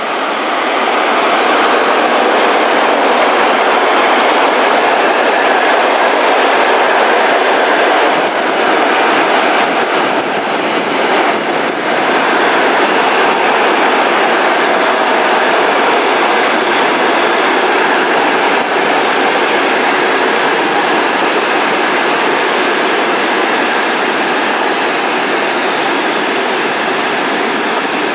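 Passenger train behind an EP2K electric locomotive rolling past along the platform: a steady rumble and hiss of steel wheels on the rails as the coaches go by, with a few wheel clacks over rail joints about a third of the way in.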